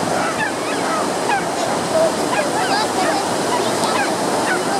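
Steady rush of ocean surf breaking on the beach, with scattered short high-pitched cries over it.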